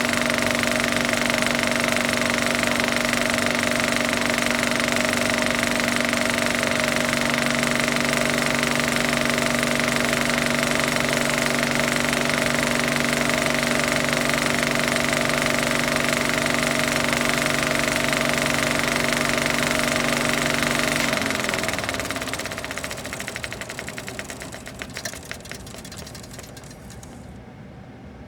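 Film projector running with a steady motor hum and rapid mechanical clatter, then switched off about three quarters of the way through: the pitch drops and the sound fades as the mechanism winds down to a stop.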